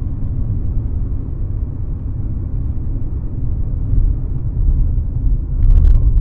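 Steady low rumble of road and engine noise inside a moving car, picked up by a dashboard camera, with a few sharp knocks near the end.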